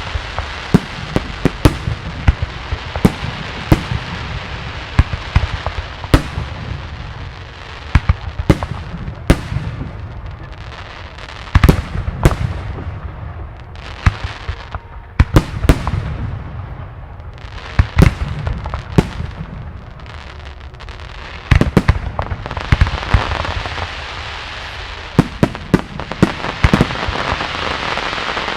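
Aerial fireworks shells bursting in a fast, irregular barrage of sharp loud bangs over a rolling rumble. A dense crackling hiss fills in during the last several seconds.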